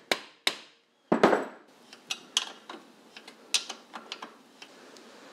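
Metal knocks and clinks of a chrome exhaust pipe being worked into a Triumph Tiger T100's cylinder head port and its clamp being handled. There are two sharp knocks near the start and a louder rattling knock about a second in, followed by lighter irregular clinks and taps that die away.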